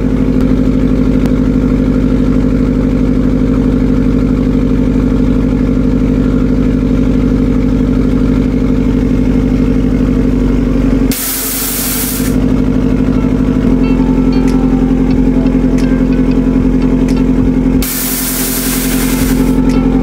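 Subaru WRX STI's turbocharged flat-four, fitted with an FP Blue turbo and running on E85, idling steadily after a cold start. Two loud hisses break in about 11 and 18 seconds in, each lasting a second or so.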